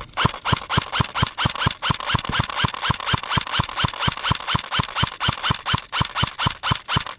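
An even run of sharp knocks, about four a second, each a low thud with a brighter click on top, keeping up steadily and stopping at the end.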